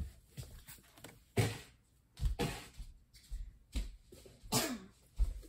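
Scattered light knocks and rustles of handling, with a few dull low thumps, as toy figures and plastic packaging are moved about on a table.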